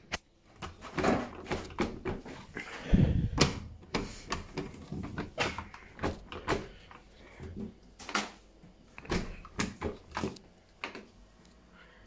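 Broken plastic door handle of a Hotpoint front-loading washing machine being pulled again and again, making a series of clicks and clacks, with one heavier thump about three seconds in.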